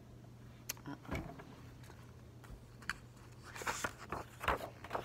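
Pages of a hardcover picture book being handled and turned: a few soft taps, then a short burst of paper rustling and knocks about three and a half seconds in, over a faint steady hum.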